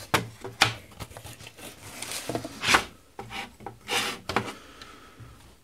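Rustling, rubbing and scraping as a perforated-metal-cased 12 V switching power supply is taken out of its packaging and slid about on a wooden desktop, in a run of irregular rubs with short sharp clicks.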